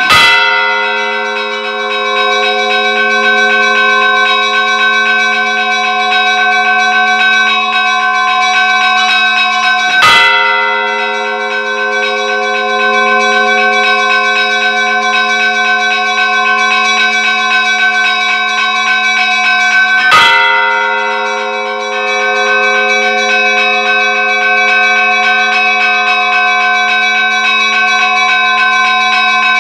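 Church bells ringing continuously, many bells sounding together in a dense, steady peal. A short sharp break cuts through it about every ten seconds.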